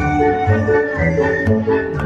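Cheerful instrumental music with a bouncing bass, about two bass notes a second, under a sustained melody.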